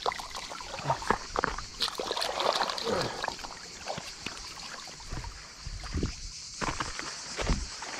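Shallow water splashing and lapping at a pebble shore as a hand rinses in it, with scattered sharp clicks and knocks.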